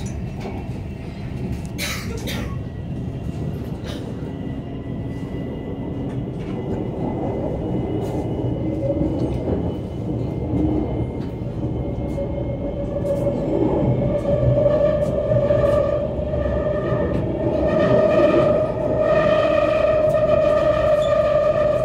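Shenzhen Metro Line 1 train running on elevated track, heard from inside the car: a steady low rumble with occasional clicks. About halfway through a steady whine sets in and grows louder toward the end.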